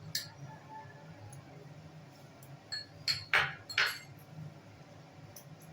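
A spoon clinking against a dish a few times, with three louder clinks in quick succession about three to four seconds in, as ingredients are spooned into the chicken marinade.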